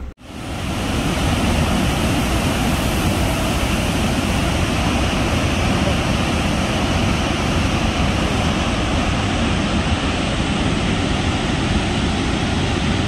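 Large waterfall rushing: a loud, steady wash of falling water that fades in over about the first second.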